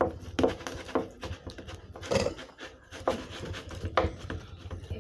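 Irregular knocks and scraping of kitchen utensils against a dish while food is handled, about five louder knocks among smaller clatter.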